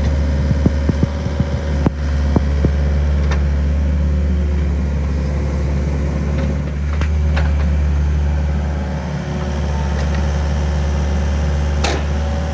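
Volvo EC55C compact crawler excavator's diesel engine running steadily, with a few sharp clicks and knocks in the first few seconds and another near the end.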